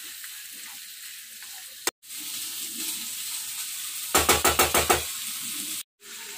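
Marinated chicken pieces sizzling as they fry in oil in a non-stick pan, stirred with a wooden spatula. The sizzle breaks off for an instant twice, and a rapid run of knocks lasting about a second sounds past the middle.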